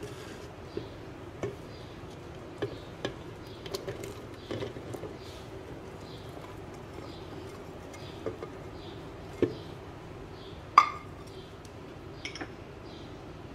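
Chopped raw mango pieces being tipped from a plate into a blender jar: scattered light clicks and knocks of fruit, plate and jar, with one sharper clink about eleven seconds in, over a faint steady hum.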